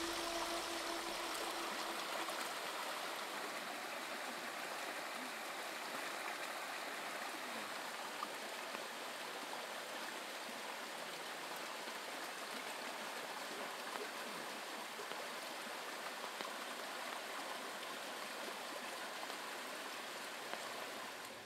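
Small stream running over rocks: a steady, even rush of water with a few faint ticks.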